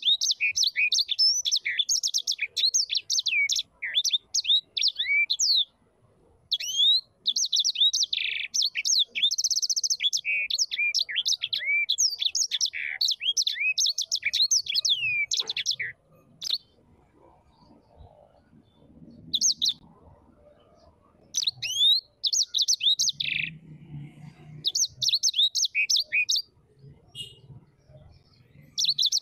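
A small songbird singing long bouts of fast, twittering chirps that break off briefly about six seconds in. After about sixteen seconds the song gives way to shorter bursts, with a faint low hum in the pauses.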